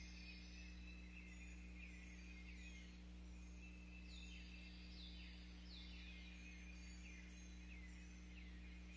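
Faint birds singing in the woods, a run of quick downward-slurred notes repeating throughout, over a steady low hum, heard through an outdoor security camera's microphone.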